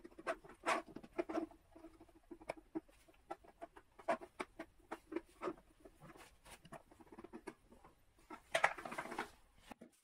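Close-up handling of small electronic parts and hardware: irregular light taps, clicks and scratching, with a longer scratchy rustle near the end. The sound cuts off abruptly just before the end.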